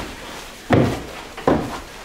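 Footsteps climbing a wooden staircase: two heavy thudding steps a little under a second apart.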